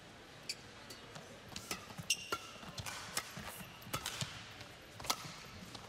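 Badminton rally: sharp, irregular cracks of rackets striking the shuttlecock, mixed with short squeaks of court shoes on the playing surface.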